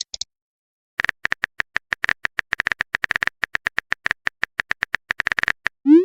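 Phone keyboard typing sound effect: a rapid, uneven run of short clicks, then a brief rising electronic tone near the end, like a message-sent alert.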